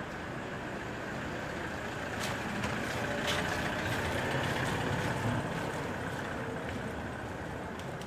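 A motor vehicle passing by, growing louder to a peak about four to five seconds in, then fading.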